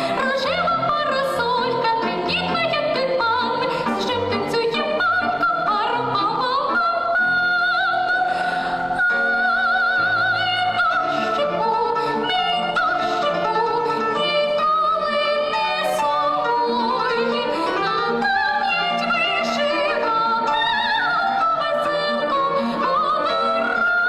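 Classical vocal performance in operatic style: a high voice sings a melody with vibrato on long held notes, over instrumental accompaniment.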